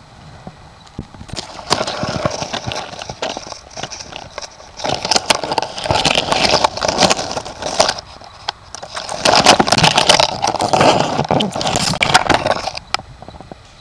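Dry fallen leaves rustling and crackling in three loud stretches, each a dense patter of small crunches and clicks, with quieter gaps between.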